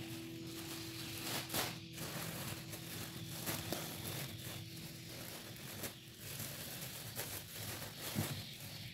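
Plastic shopping bags rustling and crinkling as groceries and leafy greens are pulled out of them, in irregular scrapes and crackles.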